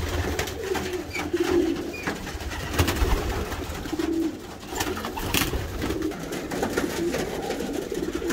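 Racing pigeons cooing inside a small loft, several birds in repeated low coos that overlap one another. A couple of sharp knocks come about three seconds in and again past the middle.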